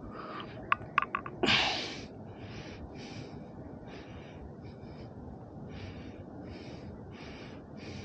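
A few light knocks, then a splash as a mulloway is lowered by hand into the river, followed by soft swishing of water about twice a second while the fish is held by the tail to recover.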